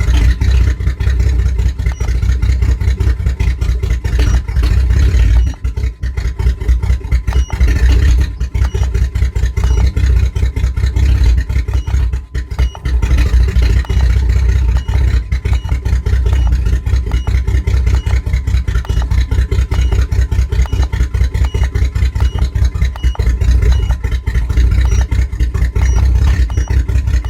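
1997 GMC Jimmy's 4.3-litre V6 running with a misfire. The steady engine sound dips briefly about six seconds in and again about twelve seconds in.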